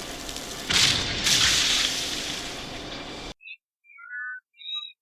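Cartoon blast sound effect: a loud rushing hiss with two sudden louder bursts about a second in, fading and then cutting off abruptly, followed by a few faint high chirps.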